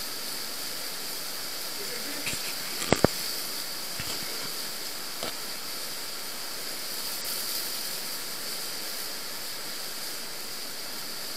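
Steady rushing hiss of the underground Neglinka river flowing through its collector tunnel, with light splashes of wading steps and two sharp knocks in quick succession about three seconds in.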